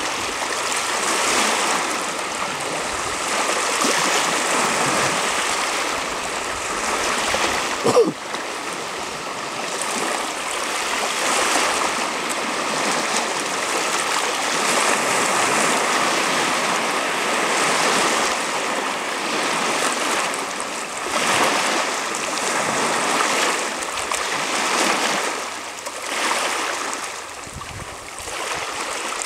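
Small waves washing and lapping on a stony shore: a steady rush of water that swells and eases every few seconds, with one short, sharp knock about eight seconds in.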